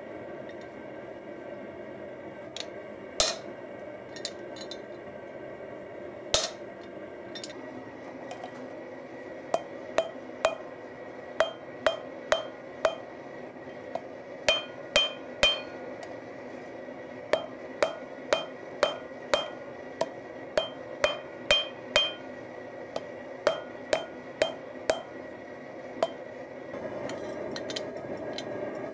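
Hand hammer striking hot leaf-spring steel on an anvil and on a guillotine fullering tool, forging the knife's integral bolster. A few spaced blows come first, then a steady run of about two ringing blows a second from about ten seconds in, which stops a few seconds before the end. Under the blows there is a steady background noise, louder near the end.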